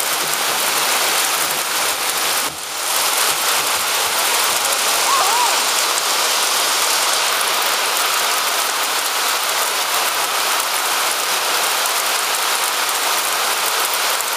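Hailstones pelting down steadily in a dense hiss of many small impacts, briefly quieter about two and a half seconds in.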